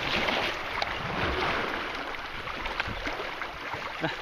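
Steady rushing and splashing of river water around a paddled kayak in shallow water, with a few small splashes and knocks.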